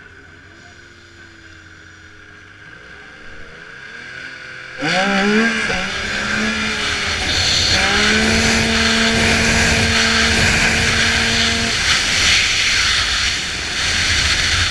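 Stock 600-class racing snowmobile engine launching down a grass drag strip. After a few seconds at a low, quiet run, it jumps to full throttle about five seconds in, its pitch sweeping up and then holding a steady high note, with loud wind noise over the onboard camera.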